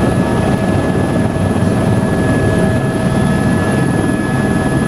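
A turbine tour helicopter's engine and rotor running at take-off, heard from inside the cabin. It is a steady, loud roar with constant high whining tones from the turbine on top.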